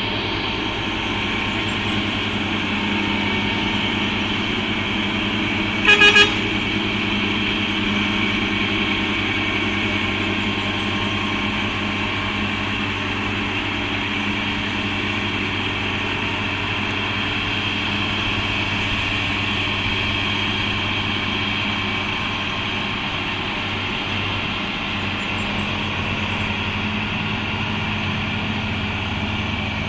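Truck engine running steadily under load as it climbs a steep incline, a low, even drone. About six seconds in, the horn sounds two short toots.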